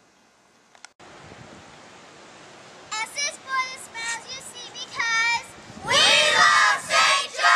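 A group of children's voices: short high-pitched shouted calls, then from about six seconds in many children yelling and cheering loudly together.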